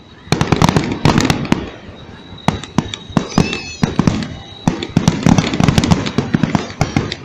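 Aerial fireworks shells bursting into crackling stars: dense runs of sharp crackles and pops over a low rumble. One run starts about a third of a second in and lasts about a second, and a longer one begins about two and a half seconds in.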